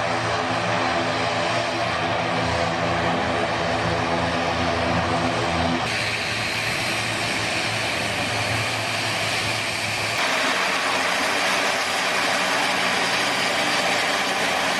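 Propeller aircraft engine running steadily, a droning note with a hiss over it. The sound shifts about six seconds in and again about ten seconds in.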